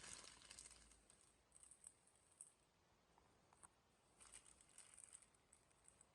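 Near silence, with faint scattered crackles and ticks that are loudest in the first second.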